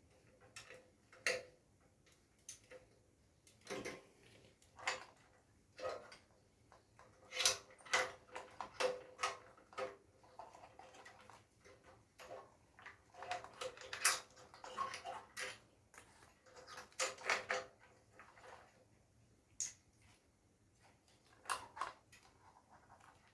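Irregular clicks, taps and clinks of parts and tools being handled during work on a water heater, some in quick clusters, a few leaving a short metallic ring.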